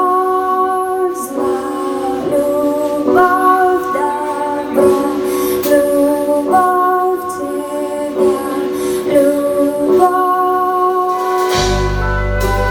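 Live band music with a woman singing over sustained chords that change in steps about once a second; a deep bass comes in near the end.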